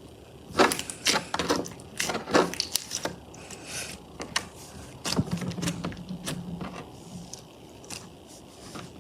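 Slime being worked by hand, giving irregular sticky clicks and pops, busiest in the first three seconds and again from about five to seven seconds in.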